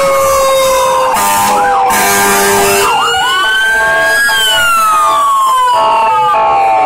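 Several fire engine sirens sounding at once as the trucks pass, overlapping slow wails that sweep up and down in pitch, with a fast up-and-down yelp about a second and a half in. A steady horn blast lasts about a second and a half, starting about a second in.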